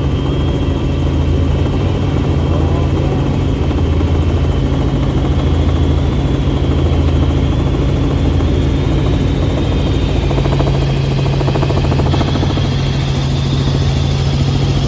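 Helicopter in flight, heard from inside the cabin: the rotor and engine drone steadily, with a faint high whine over the low hum.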